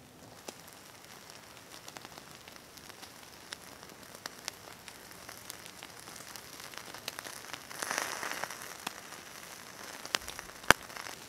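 Wood campfire crackling with scattered sharp pops, a short hiss about eight seconds in, and one loud pop near the end.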